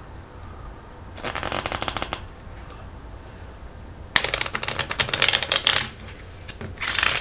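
A deck of playing cards being shuffled by hand, in three bursts of rapid flicking clicks. The longest and loudest burst comes about four seconds in.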